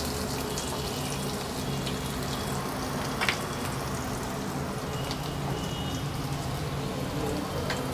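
Oil sizzling steadily in a non-stick frying pan as curry leaves and chopped ginger fry in it, with an occasional faint crackle.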